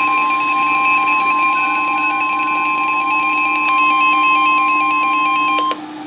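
NOAA Weather Radio's 1050 Hz warning alarm tone: a loud, steady single high tone that cuts off sharply near the end. Weather radio receivers' electronic alert beeps pulse over it. The tone is the signal that a warning message follows.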